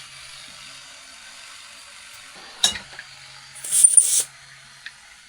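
A sharp click, then about a second later a short, loud, high hissing burst, as from a puff of air blown into a dirty iPhone charging port to clear it. A faint low hum runs underneath.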